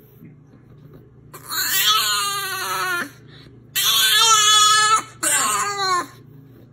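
Puppy crying in three long, loud whining cries, each one sliding down in pitch toward its end.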